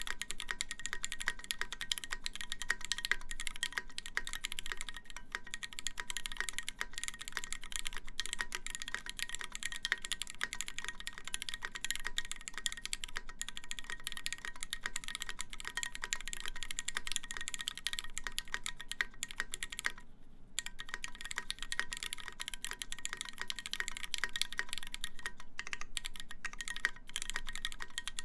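Continuous typing on a mechanical keyboard with lubed Cherry MX Black linear switches, 78 g springs, GMK keycaps and a 4.5 mm stainless steel plate, keystrokes clicking rapidly. There is a brief pause about twenty seconds in.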